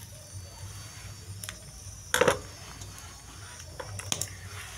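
A metal fork clinks sharply against a frying pan about two seconds in, with a few lighter clicks before it and near the end.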